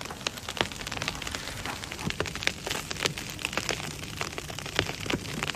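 Ice ticking and crackling: a dense, irregular run of small sharp clicks over a steady hiss, as from freezing rain or ice pellets striking iced surfaces.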